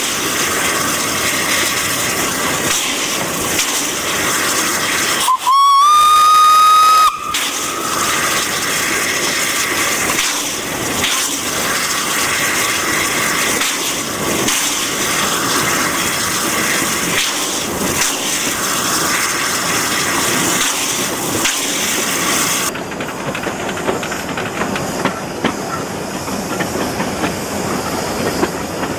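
Corpet-Louvet 0-4-0 steam locomotive under way, heard from the footplate: steady steam hiss and running noise with faint regular clicks. About five seconds in, one whistle blast lasting under two seconds, sliding up slightly in pitch at its start. Near the end the sound changes to the train running past beside the track.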